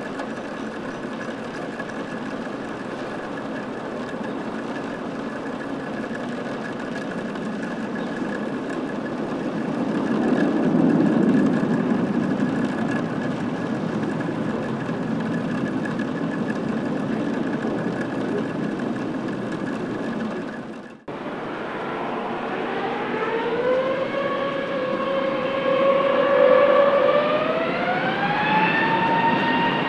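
Airbus A330-300's Pratt & Whitney PW4000 jet engines at high power, a steady rumble with a high whine on top that swells about ten seconds in. After a sudden cut, an Airbus A321neo's engines spool up, their whine climbing in steps as takeoff thrust is set.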